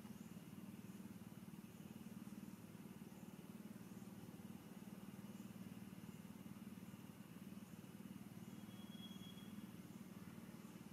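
Near silence: a faint steady low hum, with a faint high chirp repeating about once a second.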